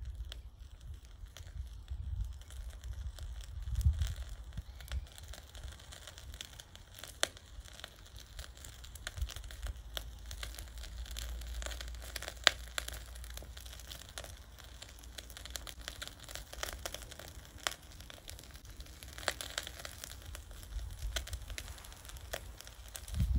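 Charcoal crackling and ticking in a shichirin grill under skewered miso-marinated fish: scattered sharp pops throughout, one louder crack about halfway, over occasional low rumbles.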